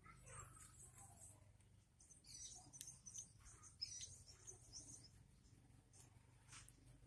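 Faint, short high-pitched chirps, clustered between about two and five seconds in, with a few light clicks.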